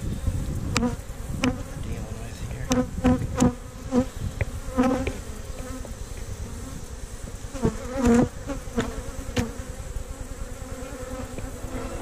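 Honey bees buzzing around an opened hive. Single bees pass close again and again, each a short buzz that swells and fades, several in the first five seconds and again around eight seconds in.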